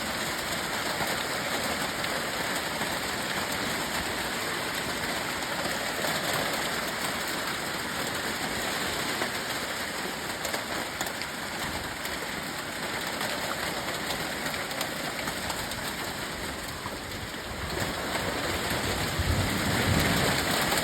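Hailstorm with heavy rain: a steady dense hiss of falling water peppered with small sharp ticks of hailstones striking. A low rumble swells up near the end.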